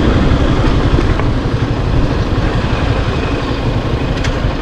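Motorcycle running at low speed and slowing down over a rough, broken road, heard from the rider's seat as a steady low rumble of engine and road noise.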